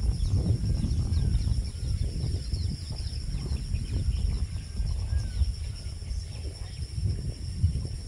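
Outdoor bird ambience: many faint short chirps and twitters of small birds over an uneven low rumble, with a steady high-pitched drone.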